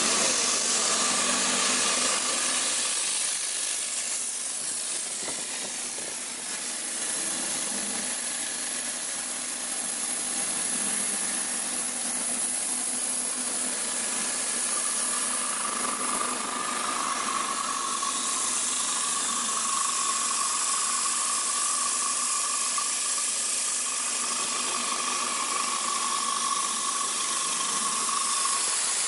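Giddings & Lewis PT1800 CNC horizontal boring mill running a program, its spindle turning at about 1,500 rpm: a steady hiss with machine noise underneath. A steady high whine comes in about halfway through and holds.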